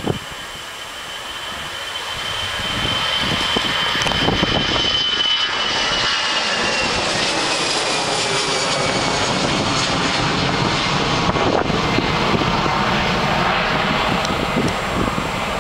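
Airbus A319 jet engines spooling up for takeoff: the sound grows louder over the first few seconds, then runs steadily loud through the takeoff roll, with high whines that slowly shift in pitch.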